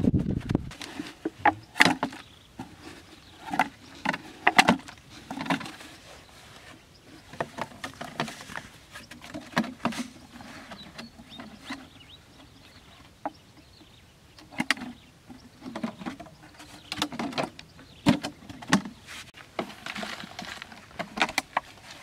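Large plastic bottles being handled and pressed into holes in sandy soil: irregular crinkles and knocks of the plastic, with the scrape and rustle of hands working the sand around them.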